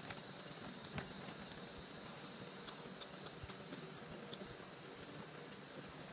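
Quiet eating sounds: chewing and small clicks of fingers picking flesh off a fried tilapia, over a steady high-pitched background hiss.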